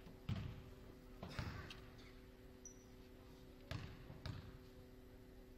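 A basketball bounced on a hardwood gym floor, four separate thumps with a short echo, as a player dribbles at the free-throw line. A faint steady hum runs underneath.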